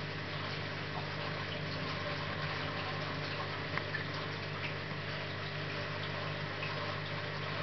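Aquarium pump and filter running: a steady low hum with the even rush of moving water.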